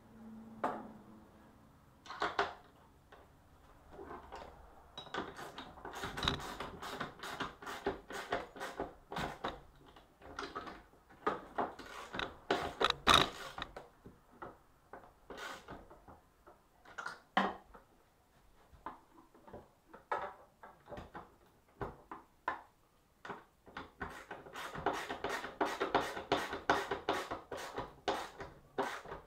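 Socket ratchet wrench clicking in quick runs as it tightens the bolts of a bench vise into a wooden workbench, with pauses between the runs. The clicks come thickest about a third of the way in and again near the end, and are loudest about halfway through.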